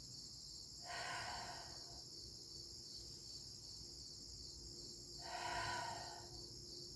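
Steady chorus of crickets, with two long breaths: one about a second in, another about five seconds in.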